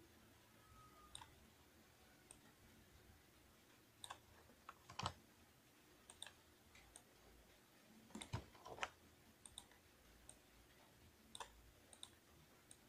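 Faint, irregular clicks of a computer mouse and keyboard, with small clusters of louder clicks about four to five seconds in and again about eight to nine seconds in, over quiet room hiss.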